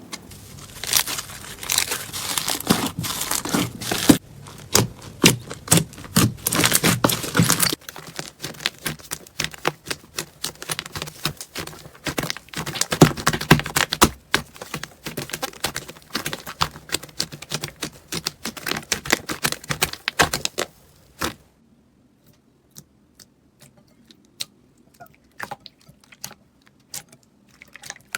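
Slime being pressed, squeezed and stretched by hand, giving dense crackling and clicking, with a change in texture about 8 seconds in. From about 21 seconds in, only sparse, quieter clicks and pops.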